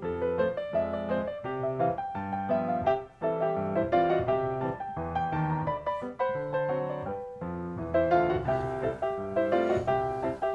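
Background piano music, a steady stream of notes with a short pause about three seconds in.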